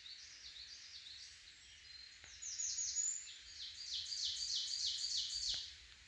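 A wood warbler singing: quick repeated high, down-slurred notes, a fainter run in the first two seconds, then a louder run of about four notes a second from about two and a half seconds in until near the end.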